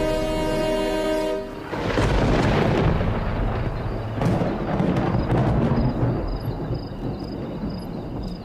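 A sustained chord of background music stops about a second and a half in. A loud, rough rumbling commotion follows from lions attacking an elephant at night, with a faint high chirp repeating about twice a second in the later part.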